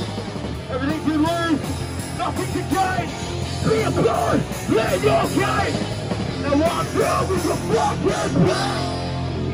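Hardcore punk band playing a song live, with yelled vocals over the full band.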